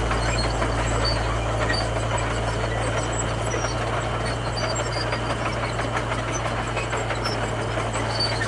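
Komatsu bulldozer's diesel engine running steadily with a constant low hum.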